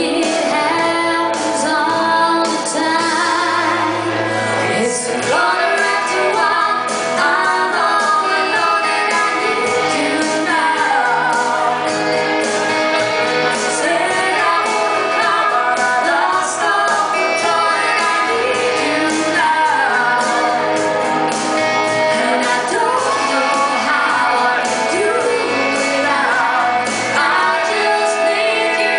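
A man and a woman singing a country-pop duet into handheld microphones, with instrumental accompaniment. The woman's voice leads at first, and both sing together later on.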